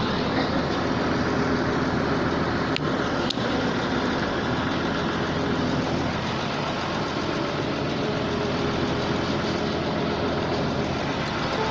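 Diesel engine of a 655 CFM portable air compressor running steadily, with two brief clicks about three seconds in.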